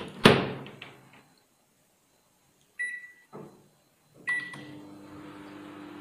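Microwave oven door shut with a loud thud, then two short keypad beeps about a second and a half apart, and the oven starts a heating cycle, running with a steady hum.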